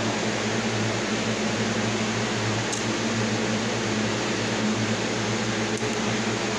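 Steady whirring noise with a low hum, of a running fan or similar small motor, with two faint clicks, one about three seconds in and one near the end.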